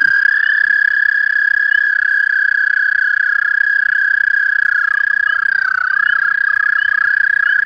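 Chorus of American toads trilling: long, steady, high musical trills from many males overlapping into one continuous ringing tone, with the pitch wavering briefly around five to six seconds in as several trills overlap.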